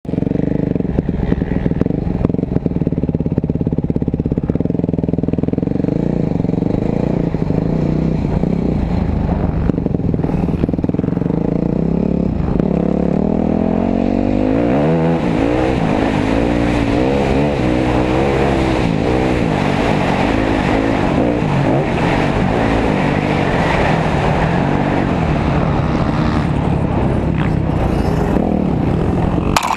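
Dirt bike engine heard close up from the rider's own camera, running at low, fairly even revs at first. From about halfway it revs up and down again and again as the bike rides the track and works through the gears.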